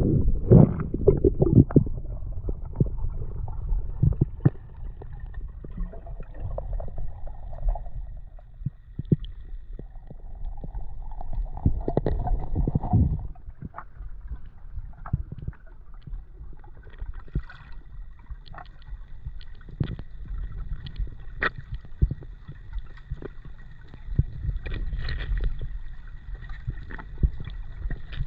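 Muffled water movement heard underwater during spearfishing: a low rumbling, gurgling wash with many scattered clicks and knocks, swelling louder at the start and again about halfway through. A faint steady high tone comes in after a few seconds.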